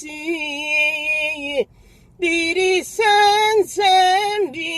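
A voice imitating a musical vehicle horn: a series of steady, held horn-like notes that step between pitches. There is one long note first, then a half-second break, then four shorter notes.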